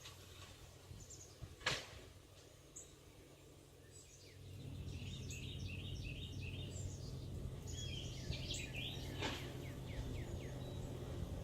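Wild birds singing outdoors, a run of quick short chirping notes from about four seconds in. A sharp knock comes near two seconds in, and a low rumble rises under the birdsong at about the same point the singing starts.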